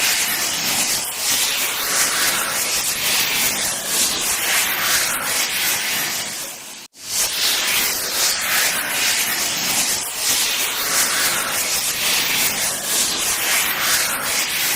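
Horror-style swoosh sound effect: airy, hissing whooshes that swell and fade every second or two. It cuts off suddenly about seven seconds in and starts again.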